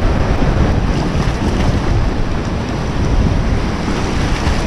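Ocean surf washing and breaking in the shallows, with heavy wind rumble on the microphone.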